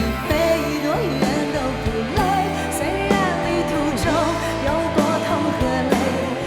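Pop-rock band music, with a melody held in long, wavering notes over full band backing.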